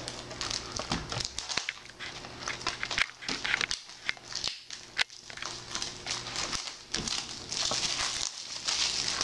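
Plastic wrapping of Yu-Gi-Oh card packaging crinkling and tearing as it is opened, in a dense run of irregular crackles and snaps.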